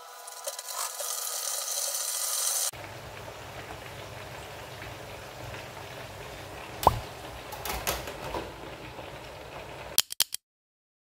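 Hot oil sizzling and crackling in an electric deep fryer as meat fries, loudest in the first few seconds and then a steadier, quieter sizzle. About seven seconds in comes a sharp clank as the fryer's metal lid is set on, then a few light clicks before the sound cuts off near the end.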